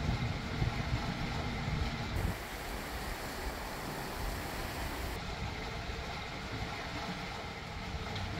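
Steady low drone of the catamaran's engine running underway. About two seconds in, a hiss of wind and water comes in for roughly three seconds, then drops away.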